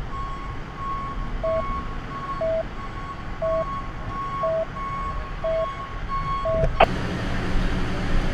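Electronic beeping about once a second, with a fainter, higher beeping tone pulsing alongside, over the low rumble of idling vehicles. The beeping ends with a sharp click about seven seconds in, and the engine rumble grows louder.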